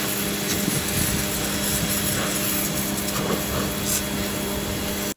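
Electric pressure washer spraying a narrow high-pressure jet through a red 0-degree nozzle tip onto a car's alloy wheel and tyre: a steady loud hiss of water over the even hum of the pump motor.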